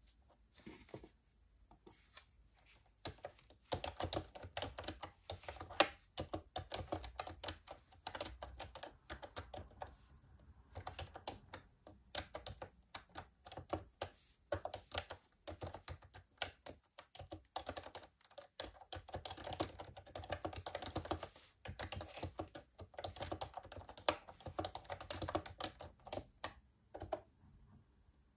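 Typing on a computer keyboard: fast runs of key clicks, with a pause of about two seconds a little past halfway and a stop shortly before the end.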